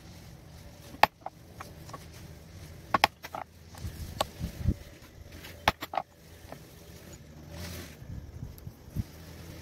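Metal leather-stamping letter stamps and their holder being handled and set down on a stone slab: a handful of sharp clicks at irregular intervals, over a low background rumble.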